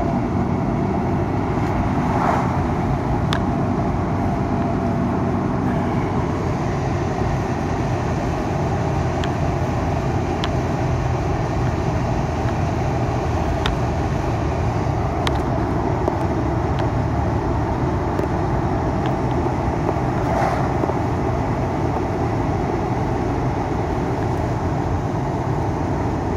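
Steady road and engine noise of a car being driven, heard from inside the cabin, with a low rumble and a few faint ticks.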